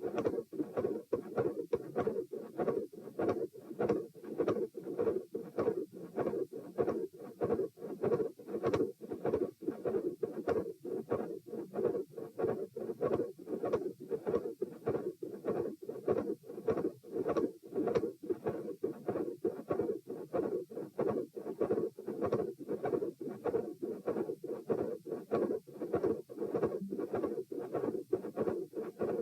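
Human heartbeat picked up through a stethoscope at the pulmonic area: a regular lub-dub, with a mid-systolic murmur and a very loud, large second heart sound.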